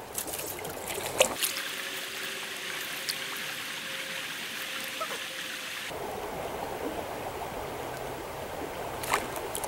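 Trout stream flowing: a steady rush of water, with a few faint knocks about a second in and near the end.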